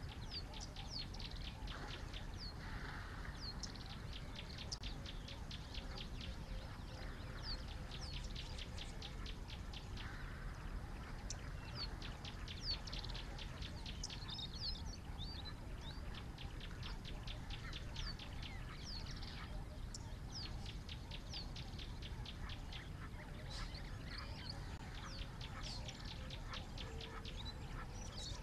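Wild birds calling outdoors: rapid runs of repeated high chirps and short whistled notes keep coming throughout, over a steady low background rumble.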